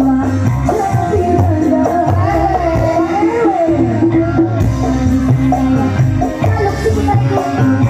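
Live dangdut music from an orkes melayu band, played loud through stage loudspeakers: a steady bass-and-drum beat under a wavering sung melody.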